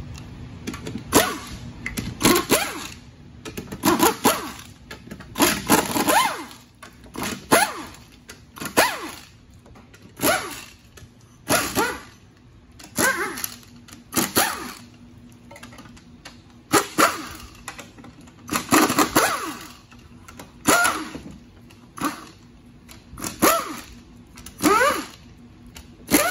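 Pneumatic impact wrench run in short bursts, about one every second or so, backing out the oil-pan bolts of an automatic transmission. Several bursts rise in pitch as the air motor spins up.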